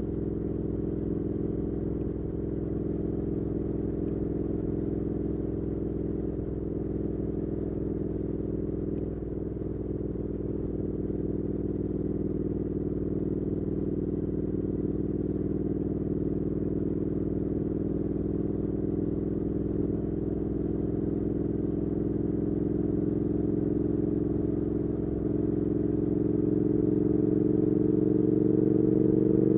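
2019 Triumph Speed Twin 1200's parallel-twin engine through a Weslake Shorty Pro exhaust, heard from on the bike while cruising at a steady pace. Near the end the engine pitch rises and it gets louder as the bike accelerates.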